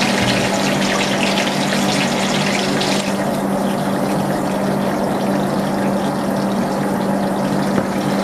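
Potato sticks deep-frying in a pan of hot oil: a steady sizzle and crackle that grows softer in its upper hiss about three seconds in, over a steady low hum.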